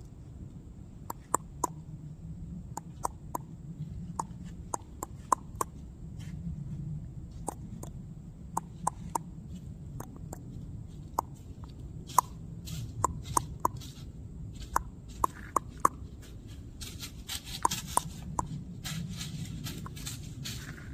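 A string of sharp, irregular clicks, one or two a second, over a low outdoor rumble; near the end a burst of rustling in dry leaves as a white-tailed deer bounds off.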